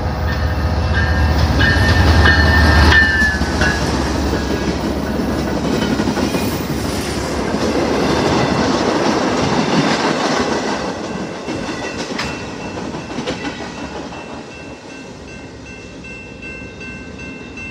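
BNSF freight train passing: its diesel locomotives rumble by, loudest in the first few seconds, then the train's cars roll past on the rails and the noise fades over the last several seconds. A steady high ringing in the later part fits the level-crossing bell.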